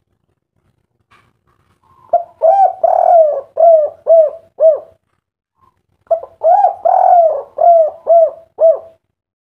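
Spotted dove (tekukur, derkuku) cooing: two song phrases a second apart, each a run of about six short coos with a longer drawn-out note near the start. It is the 'kuk 3' song type.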